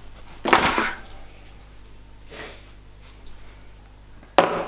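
Gear being set down on a desk: a soft thump and rustle of a fabric backpack about half a second in, a fainter rustle a little past two seconds, and a sharper knock that dies away quickly near the end.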